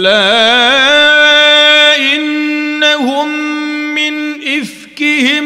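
Male voice chanting the Quran in melodic mujawwad recitation, holding long notes with a wavering ornament near the start and a short break about four and a half seconds in.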